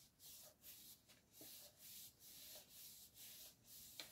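Hands rubbing and pressing down on paper card layers, a series of faint soft rubbing strokes about two a second, smoothing the glued layers so they stick.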